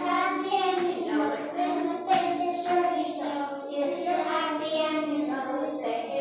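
A small group of young children singing together, holding sung notes that step up and down in pitch.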